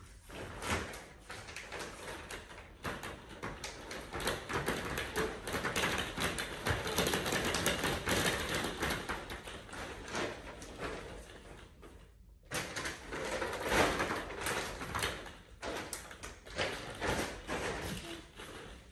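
Hollow plastic ball-pit balls clattering and bouncing on the floor of a fabric playpen as they are tipped in and a toddler plays among them: a dense patter of many small knocks. It breaks off abruptly about two-thirds of the way through, then resumes.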